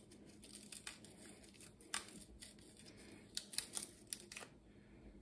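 Faint crackling and tearing of a garlic bulb's papery skin as a chef's knife tip pries the cloves apart, with a few sharp little clicks, the clearest about two seconds in and a cluster between three and four and a half seconds in.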